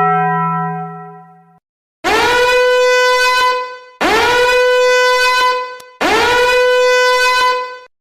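Meme sound effects: a short tone that fades out over about a second and a half, then three identical long horn blasts, each about two seconds long, each opening with a quick upward scoop in pitch before holding steady.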